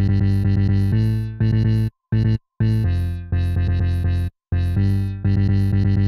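Electronic trance music: synthesizer chords over a heavy bass, chopped into short gated blocks that start and stop abruptly. The sound drops out completely twice, about two seconds in and again past four seconds.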